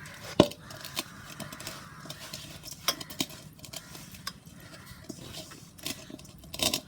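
Masala paste being mixed by hand in a bowl, with scattered clinks and taps against the bowl.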